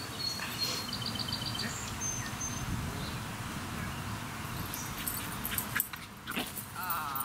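Outdoor ambience with a low steady hum and a few short, high chirps and whistles, among them a quick run of chirps about a second in and a short wavering call near the end.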